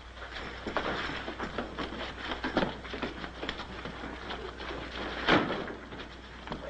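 A series of scattered knocks and shuffling noises, with one louder thump a little after five seconds in, over a steady low hum from the old soundtrack.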